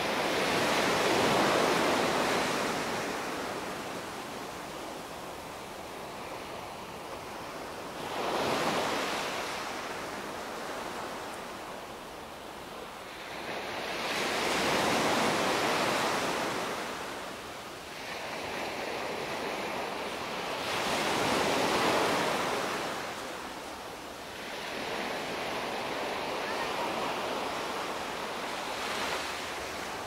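Small waves breaking and washing up a sandy beach, the surf swelling and falling back in slow surges about every six to seven seconds.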